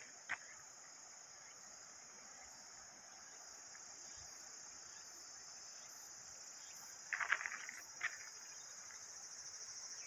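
Steady high-pitched insect chorus, with a short cluster of crunching footsteps on the trail about seven seconds in and one more step a second later.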